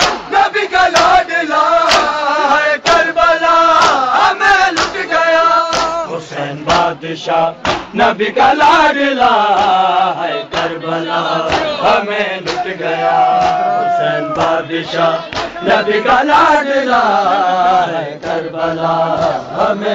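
Crowd of men chanting a Shia nauha (lament) together, with sharp slaps of chest-beating (matam) cutting through the singing.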